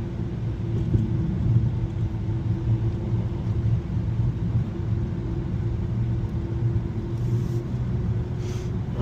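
A 2021 Mazda 3 Turbo AWD cruising steadily, heard from inside the cabin: a constant low engine and tyre rumble with a faint steady hum on a slushy, snow-covered road.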